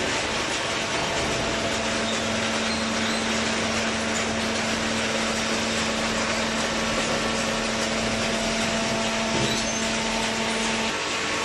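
Industrial cardboard shredding and baling machinery running: a steady, dense mechanical noise with a constant hum that stops near the end.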